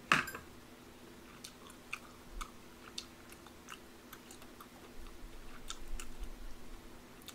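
A person chewing a mouthful of tteokbokki close to the microphone: soft, irregular mouth clicks and smacks, with one sharper click right at the start.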